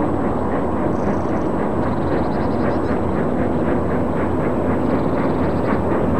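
LMS Jubilee class three-cylinder 4-6-0 steam locomotive working hard as it approaches, its exhaust giving a rapid, even chuffing beat over a steady rumble.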